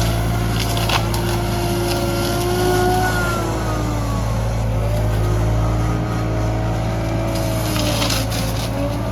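Excavator running steadily under a hydraulic-motor-driven brushcutter attachment, with a whine that slowly wavers in pitch over a constant low engine hum. A few short cracks come through, most of them near the end.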